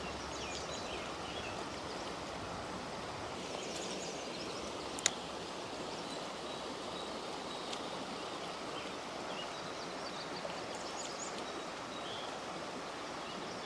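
Creek water running steadily over a shallow, rocky riffle, with a single sharp click about five seconds in.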